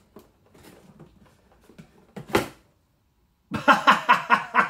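Soft rustling and handling of cardboard packaging as a boxed vinyl figure is drawn out of a cardboard shipping box, with a short sharp sound about halfway through. Near the end a man bursts into loud, rapid laughter.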